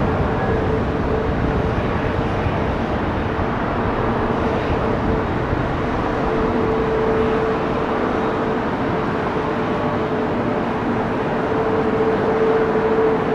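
Boeing 717's two Rolls-Royce BR715 turbofan engines running at low taxi power: a steady jet rush with a held whine that swells slightly a few times.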